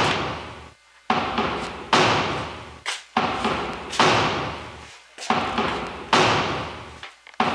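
A run of heavy, reverberant thuds, about one a second in a slightly uneven beat, each hitting suddenly and ringing away before the next.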